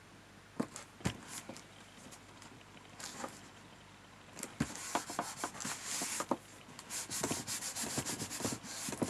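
Hands handling and rubbing cardstock paper pieces on a desk: scattered taps and clicks at first, then from about halfway a busier run of scratchy rubbing and small knocks as the pieces are pressed together.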